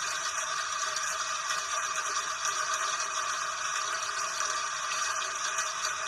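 Steady rain falling: an even, high hiss with no breaks.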